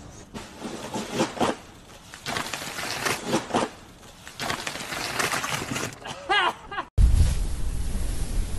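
Scraping and knocking bursts with people's voices and a short yell about six seconds in; then, after an abrupt cut about seven seconds in, loud wind buffeting the microphone.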